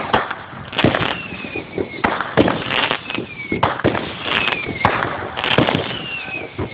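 Fireworks going off: a string of sharp bangs and crackles about every second, with several whistles that fall in pitch.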